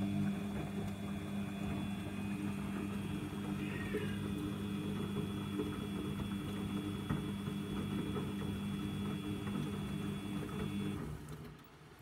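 Samsung washing machine's motor turning the drum during a heavy wash cycle: a steady hum with a faint high whine for about eleven seconds, then stopping.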